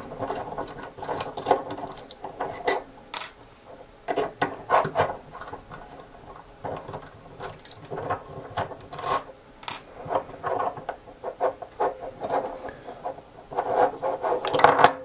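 Plastic gimbal housing being unscrewed with a precision screwdriver and pried apart by hand: irregular clicks, scrapes and rubbing, the body scratching on the desk.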